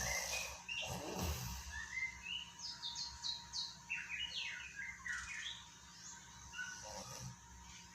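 Small birds chirping in quick runs of short, high notes. About a second in there is one low snoring breath from a rooster.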